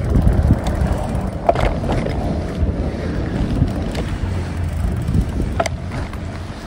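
Wind buffeting the microphone during a bike ride: a steady low rumble, with a couple of short clicks, one about a second and a half in and another near the end.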